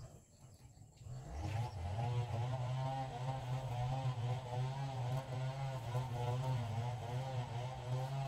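A motor engine comes in about a second in, rising in pitch, then runs steadily with its pitch wavering slightly.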